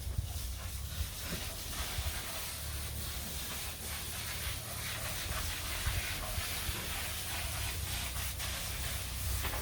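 Water spraying from a hose in a steady hiss, as the dairy animals and shed are washed down.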